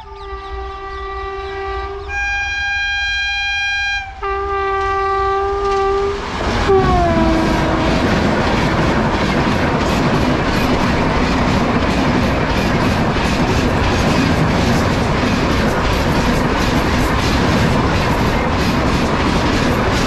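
Indian Railways electric locomotive sounding its two-tone air horn in three long blasts, low, high, then low again, with the pitch dropping sharply as it passes close by. Then its express coaches run past at speed with a steady rush and rhythmic clickety-clack of wheels over rail joints.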